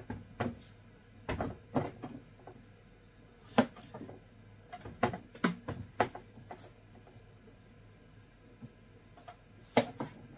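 Kitchen knife cutting through a large overgrown zucchini and knocking on the cutting board, with the heavy squash shifted and set down on the board: scattered sharp knocks at uneven intervals.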